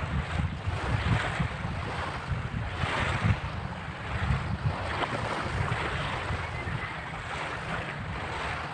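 Wind buffeting the microphone over small waves washing on a pebble shore, with swells of hiss every second or two.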